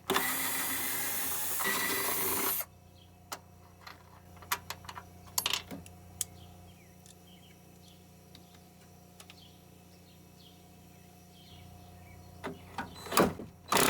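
A power drill/driver runs for about two and a half seconds, spinning out a compressor mounting bolt on a window air conditioner, followed by scattered metallic clicks and knocks of the socket and parts being handled.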